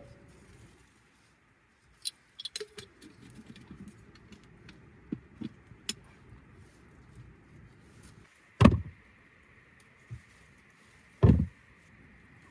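Hard objects being handled: a run of light clicks and clinks, then two heavy thuds about three seconds apart.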